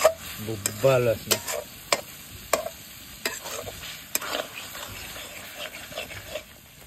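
Metal spatula stirring and scraping a thick masala in a metal kadai, with sharp clacks against the pan about every half second that thin out near the end, over a light sizzle of frying.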